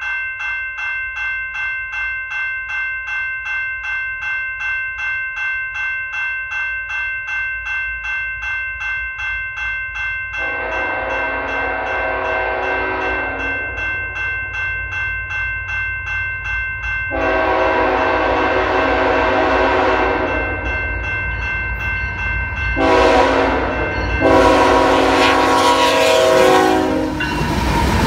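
Railroad grade-crossing bell ringing in steady, even strokes while an approaching CN freight locomotive sounds its horn in the crossing signal: two long blasts, a short one, then a long one. Near the end the locomotive passes close by with a rising rumble of engine and wheels.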